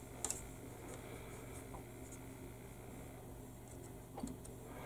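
Plastic model-kit sprue handled on a cutting mat: a sharp light click shortly after the start and a softer knock near the end, over a faint steady hum.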